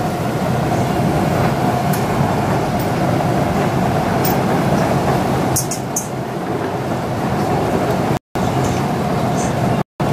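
Bumper-boat motors running with a steady drone and a constant hum. The sound cuts out to silence for a moment near the end.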